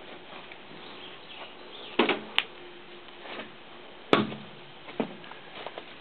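Footsteps pushing through brush and dead branches, with irregular crunching and several sharp twig snaps, the loudest about two seconds and four seconds in.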